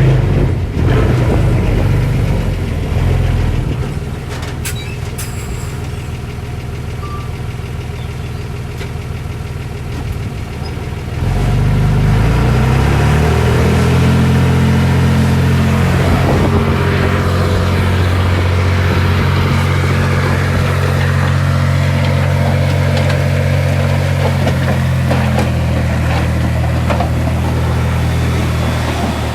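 Heavy diesel engine of earthmoving machinery running. It eases off for several seconds, then about eleven seconds in it revs up in steps and holds at higher revs, as under load.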